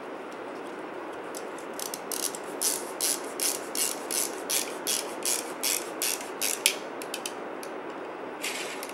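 Ratcheting handle of a spinal screw-insertion instrument, clicking in a steady rhythm of about three strokes a second as a pedicle screw is turned into a foam spine model. It starts about two seconds in, stops about seven seconds in, and clicks briefly once more near the end.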